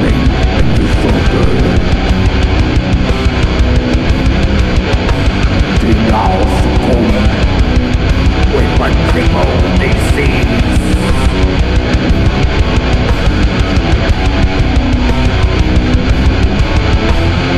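Death-doom metal: heavily distorted electric guitars over a drum kit playing a steady, busy beat.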